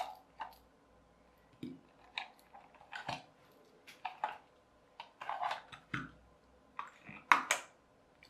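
Irregular clicks and knocks of old batteries being handled and taken out of the plastic battery compartment of an old wire-controlled toy car; the batteries are dead.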